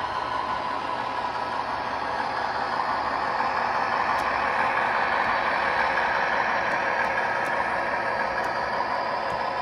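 MTH O scale DC-3 rail inspection car model running along the track, with a steady rolling and motor noise that grows louder as it passes close and eases off near the end.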